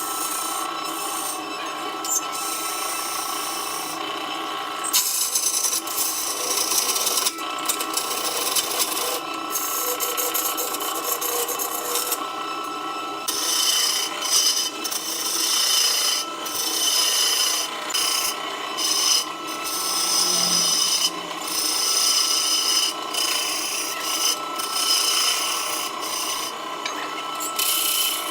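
Wood lathe running, with a tool or abrasive scraping against the spinning wood in uneven strokes that swell and drop every second or two, over a steady tone from the machine.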